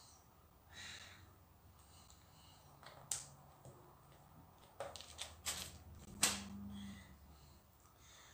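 Small plastic LEGO pieces being handled and pressed onto a baseplate: faint scattered clicks, with a few sharper clicks in the middle.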